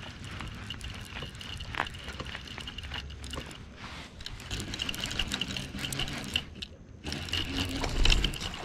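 Fishing reel being cranked to retrieve line: a fast ticking whir that comes in runs, starting and stopping, with a louder bump near the end.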